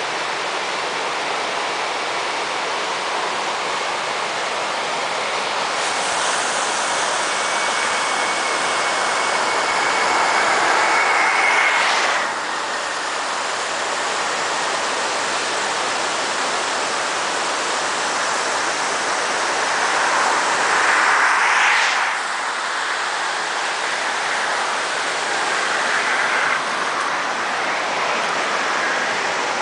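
Whitewater rapids of the Mad River rushing steadily. Two vehicles pass on the highway over it: the first builds up from about six seconds in and falls away suddenly near the middle, the second swells briefly about two-thirds of the way through.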